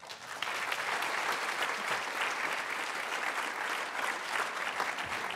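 Audience applauding: many hands clapping in a dense, steady patter that breaks out suddenly.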